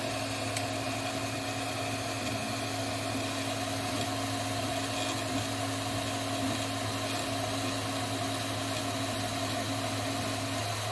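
Anet A8 Plus 3D printer running a print: a steady hum and fan whir from its motors and cooling fans. Part of the sound cuts off near the end as the print finishes.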